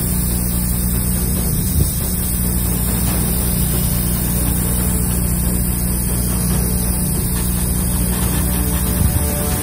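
Airbrush set-up in use: a steady motor hum, as of a spray-booth exhaust fan and compressor, under a continuous hiss of air from the airbrush spraying paint.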